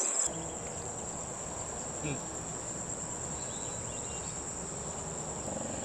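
Insects chirring in one steady, unbroken high-pitched drone.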